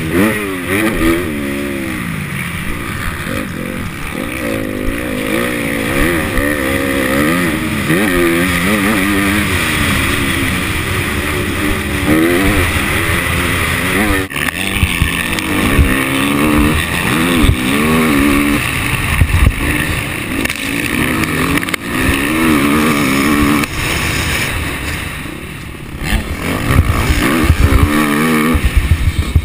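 Motocross bike engine revving up and down over and over, its pitch rising and falling with the throttle. It eases off briefly near the end, then revs hard again.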